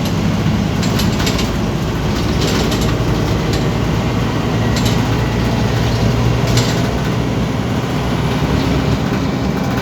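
Scania OmniCity city bus running, with a steady low drive and engine noise that swells slightly a little past the middle, and a handful of short clicks or rattles scattered through it.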